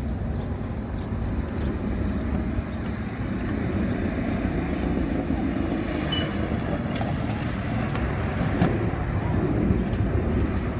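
Boeing 737-800's CFM56-7B turbofan engines at climb power just after takeoff: a steady deep rumble that grows a little louder over the second half.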